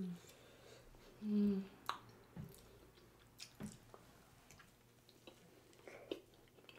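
People chewing mouthfuls of meat pie, with faint scattered crunches and mouth clicks, and a short hummed "mm" about a second and a half in.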